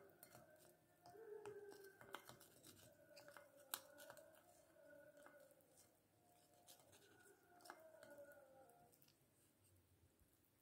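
Faint clicks and scrapes of a spoon stirring wet yellow clay in a glass bowl, the loudest click a little under four seconds in.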